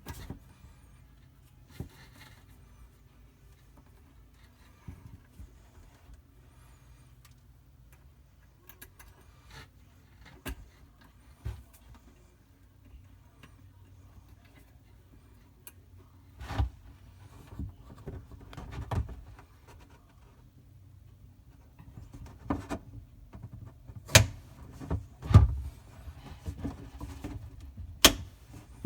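Scattered clicks, knocks and rattles of hand work on faucet supply-line fittings under a sink, with a few sharper knocks in the second half.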